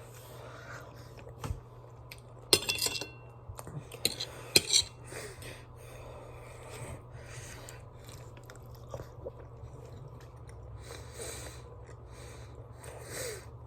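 Close-up chewing and eating of a chicken pasta casserole, with a few sharp clinks and clatters of a fork against the dish between about two and five seconds in, over a steady low hum.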